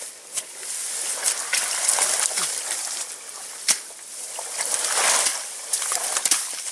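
Water splashing and dripping from a wire-mesh fish trap full of fish as it is hauled out onto wet grass, with the wire cage giving sharp clicks and rattles, one louder click a little past halfway.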